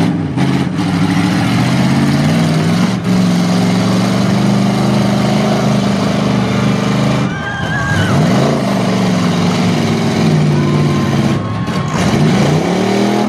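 Pickup truck engines running hard at high revs as demolition derby trucks push against each other. The pitch holds steady for seconds at a time and rises and falls in between.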